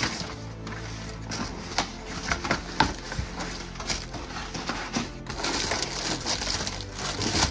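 Cardboard box flaps, paper and plastic shrink-wrap being handled while a parcel is unpacked: rustling and crinkling with many sharp crackles, and a denser stretch of rustle near the end.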